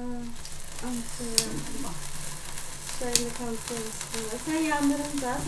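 Fountain sparkler candle on a birthday cake burning with a steady sizzling hiss, starting right at the beginning, with two sharp pops. People's voices carry on underneath.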